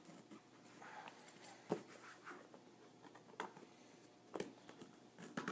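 Faint rustling of a shipping box and its packing being handled and opened, with a few sharp clicks and taps, the loudest about two seconds in.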